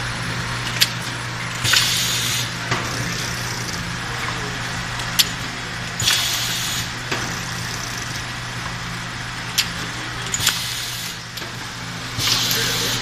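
Automatic essential-oil dropper-bottle filling and capping machine running: a steady hum with occasional sharp clicks, and a short hiss of air about every four to five seconds as its pneumatic cylinders cycle.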